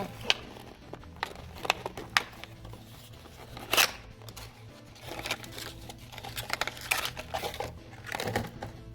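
Plastic packaging crinkling and rustling by hand, with scattered sharp clicks and crackles, as slime packets are taken out of a toy's packaging. The loudest click comes a little under 4 seconds in.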